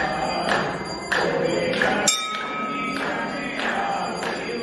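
Music with singing over a steady percussion beat, a little under two strikes a second.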